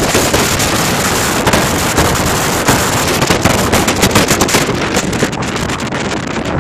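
Strong wind blasting across the microphone: a loud, continuous rush with rapid buffeting thumps, easing slightly about five seconds in.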